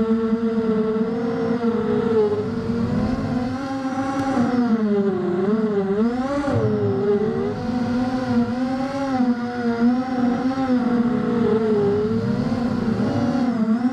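FPV racing quadcopter's T-Motor 1806 2300 kV brushless motors and 5x4.5 propellers whining in flight, heard from the onboard camera. The pitch keeps rising and falling with the throttle, with the biggest swings about midway and near the end.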